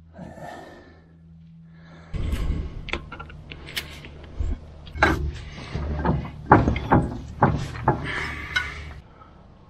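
Scattered metal clinks and knocks of a steel roller drive chain and sprocket being handled inside a grader's chain case, starting about two seconds in and stopping shortly before the end, over a low steady hum.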